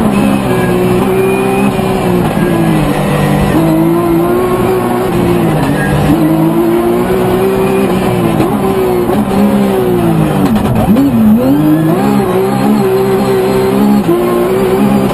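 Rally car's engine heard from inside the cockpit, driven hard, its pitch falling and climbing again and again with gear changes and lifts for the bends, with a deep drop and climb back about eleven seconds in.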